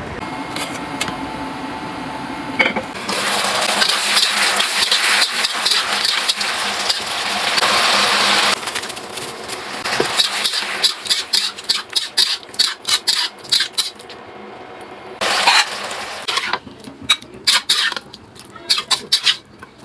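Cookware and metal utensils clinking and scraping against pots and dishes. A steady hiss runs for about five seconds in the first half, followed by a long run of quick, irregular clinks.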